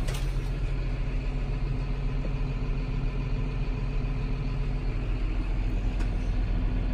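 John Deere 6150R tractor's six-cylinder diesel engine idling steadily, heard from inside the cab.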